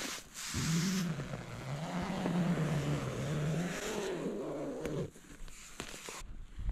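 A low, drawn-out voice-like sound that wavers up and down in pitch for about four seconds, over the rustle of nylon tent fabric as the tent door is pulled open, with a few light clicks near the end.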